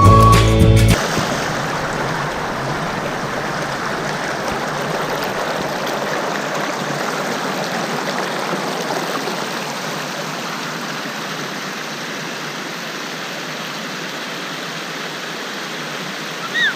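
Steady rushing of a waterfall, a little softer after about ten seconds. A short rising chirp comes near the end.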